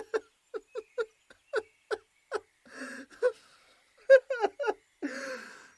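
A man crying: short whimpering sobs about two to three a second, then a cluster of shaky sobs, with ragged breaths in between.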